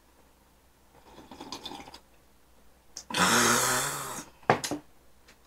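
A man swallowing a drink of juice, then letting out a loud, breathy 'ahh' exhale about three seconds in, followed by a couple of short clicks.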